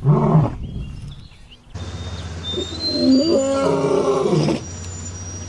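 A big cat's growling roars: a short call right at the start, then, after an abrupt cut to a steady low hum, a longer run of pitched roaring calls that stops suddenly about two-thirds through.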